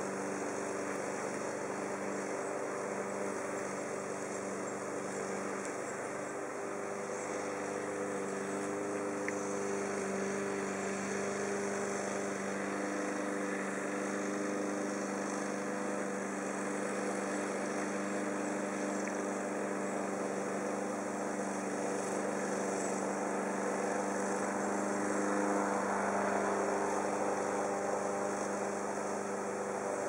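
Honeybee swarm buzzing: many bees' wings making a steady, even drone with a low hum and its overtones.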